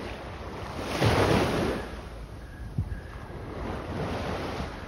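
Wind buffeting the phone's microphone over open harbour water, with a steady wash of waves; a stronger gust swells about a second in and dies away.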